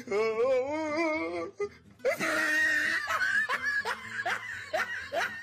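Background music: a long sung note with wide vibrato, then a busier passage with a steady high tone and quick rising vocal sounds repeating about twice a second.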